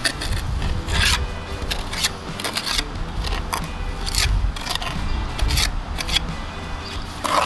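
Small mason's trowel scraping and pressing wet mortar into the joints between stone veneer, a series of short, irregular scrapes about once or twice a second.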